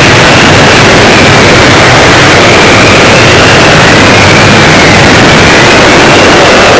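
Very loud, heavily distorted noise held at full level, with a faint tone slowly wavering up and down behind it.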